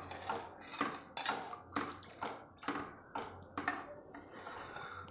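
Spoon stirring a cornflour-and-water mixture, clinking against the sides of the vessel about twice a second over a wet swishing.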